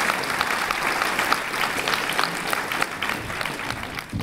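A large conference audience applauding, many hands clapping together in a steady stream.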